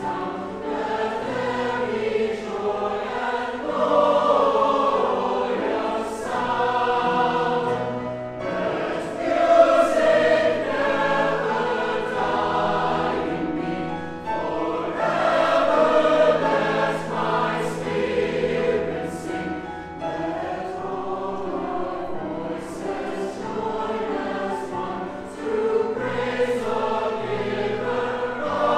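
Mixed choir of men's and women's voices singing in parts, sustained phrases that swell and ease with short breaks between them.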